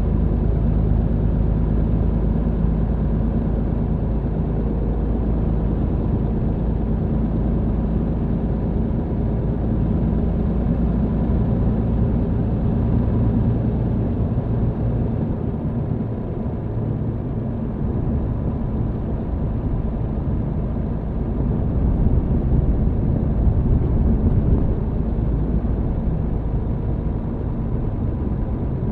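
MAN TGX truck engine running steadily under way, heard from inside the cab, with road and tyre noise. The low rumble eases briefly about halfway through and then picks up again.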